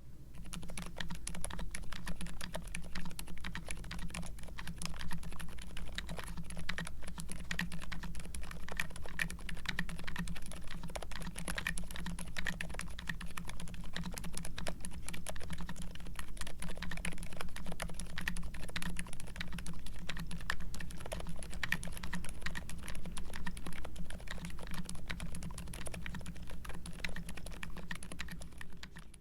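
Continuous fast typing on a mechanical keyboard fitted with Outemu Silent Lemon tactile switches, whose soft-dampened key presses give muted, thocky clacks. The board is a plastic-cased Ikki68 Aurora with an aluminium plate, fully foamed, under ABS keycaps.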